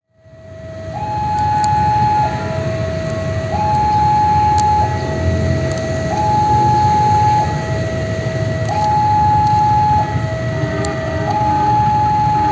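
Railway level-crossing warning alarm sounding a slow hi-lo two-tone signal, each tone held about a second and a quarter, warning of an approaching train. A low rumble runs underneath.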